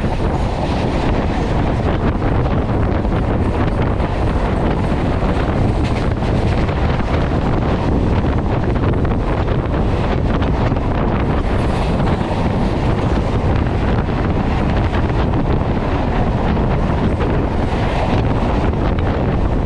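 Wind buffeting the microphone as it is held outside a moving electric local train, over the train's steady running noise on the track.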